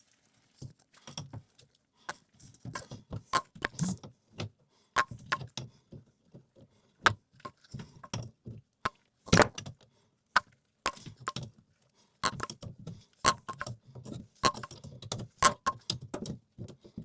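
Irregular clicks, taps and clinks of hand tools and metal and plastic plumbing fittings being handled while an old toilet water supply line is taken off.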